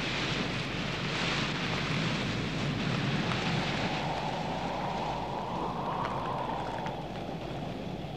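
Wind sound effect: a steady rushing, with a gust that swells and dies away about five to seven seconds in.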